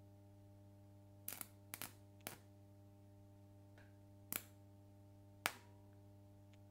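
Graphite rod touched against a 50 V DC electrode, striking sparks: five sharp crackling snaps of electric arcing over about four seconds, the last two loudest. Under them runs the steady mains hum of the 24 V transformer.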